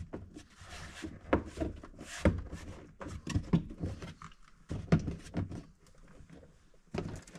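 Plastic C-pillar trim panel being pressed into place: a series of irregular knocks and clicks as its push-in clips snap in, the loudest about one and two seconds in, quieter near the end.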